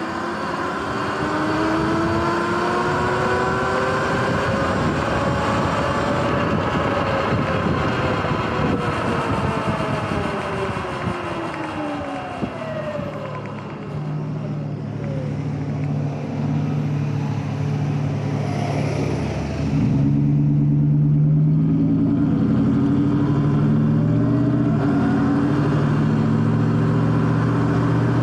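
Sur-Ron electric dirt bike being ridden: its electric motor and chain drive whine, the pitch rising and then falling as it speeds up and slows, over road and wind noise. Later the tones hold steadier and everything gets louder as the bike speeds up again.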